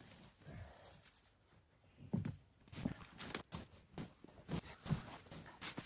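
A sheet of poplar bark being pried and peeled off a felled log, with irregular cracks and knocks coming about two a second from about two seconds in, along with movement in dry leaf litter.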